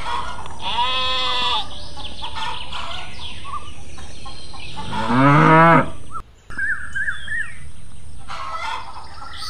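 A cow moos once, a long call falling in pitch about five seconds in, the loudest sound here. Birds chirp throughout, and a shorter, higher animal call comes about a second in. The sound cuts out for a moment just after the moo.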